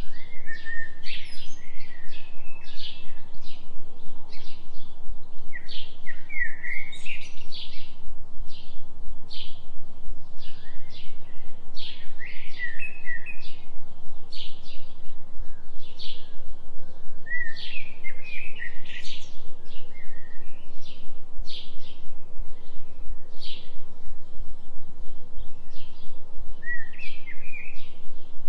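Songbirds chirping over and over in short calls, with occasional quick trills, from a forest soundscape. A steady low tone runs underneath, the delta-wave binaural tone mixed into the track.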